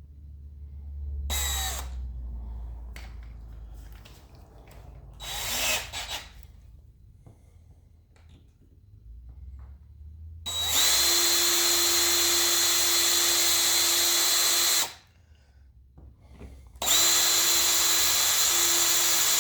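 Power drill boring a pilot hole through a four-hole strap: a few handling knocks, then the drill runs steadily with a constant whine for about four seconds, stops briefly, and starts again.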